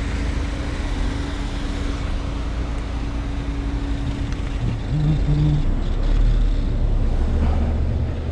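Honda CBR1000RR's inline-four engine running at low speed as the bike rolls slowly to a stop, with a louder low rumble from about five seconds in. Two short tones sound about five seconds in.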